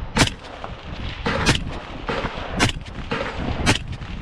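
Gunshots: four loud shots spaced about a second apart, with fainter shots between them.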